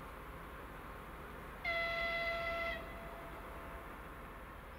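Diesel locomotive horn giving one short blast of about a second on a single steady high tone, over a low steady background hum.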